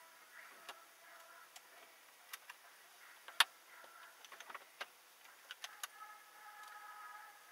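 Faint, irregular clicks and ticks inside a car's cabin while it sits stopped in traffic, heard through a dashcam's small microphone; one sharper click about halfway through and a cluster of quicker ticks after it. Near the end a faint steady tone joins in.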